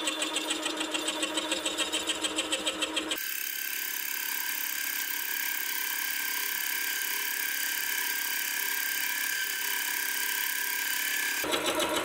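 Slitting saw on a Sieg X2.7L mini mill cutting a full-depth slot in a block of aluminium, over the mill's motor. For the first three seconds the sound pulses rapidly. It then changes abruptly to a steadier, hissier cutting sound, and the pulsing returns near the end.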